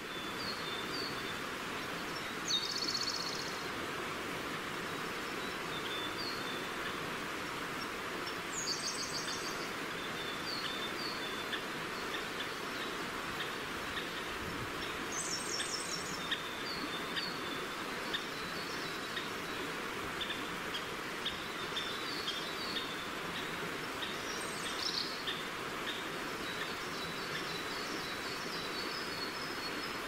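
Steady rushing of a forest stream, with birds singing over it: a short, high, rapid trilling phrase about every six seconds and frequent brief high chirps in between.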